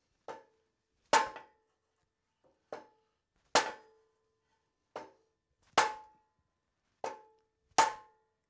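Hammer blows on metal, eight strikes in pairs: a lighter tap, then a heavier blow under a second later, about every two seconds. Each blow leaves a short metallic ring.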